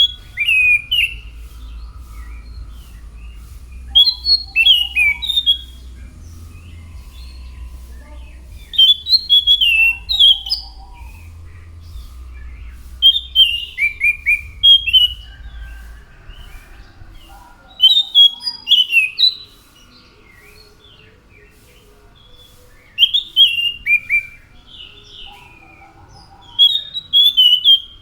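Anis macan thrush singing: short phrases of quick, clear whistled notes jumping up and down in pitch, one phrase about every four to five seconds. A faint low hum runs underneath for the first half.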